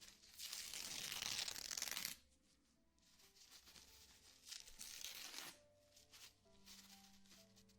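ASMR rustling and rubbing close to the microphone in two swells, a loud one of about two seconds near the start and a shorter, softer one about halfway through, over faint, soft sustained music notes.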